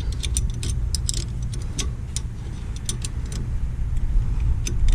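Irregular light metallic clicks and clinks of a wrench working against a rear brake caliper piston as it is spun back into the caliper, over a steady low hum.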